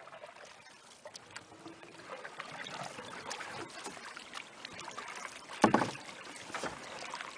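Canoes being launched and paddled in the shallows: small splashes and knocks of paddles and hulls, with one loud hollow thump about five and a half seconds in.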